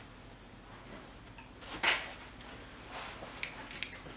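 Hand tools and metal parts being handled on the engine: a louder clunk about two seconds in, then a few light metallic clinks near the end.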